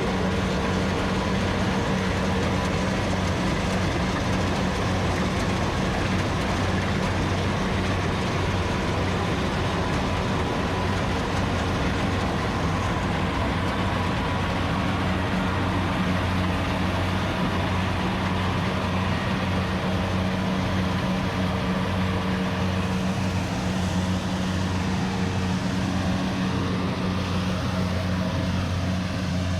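Kubota rice combine harvester's engine running steadily under load, a constant low drone that holds one pitch throughout.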